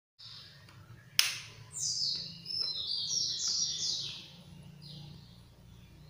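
A bird chirping a quick run of high notes that step down in pitch, after a sharp click about a second in, over a low steady hum.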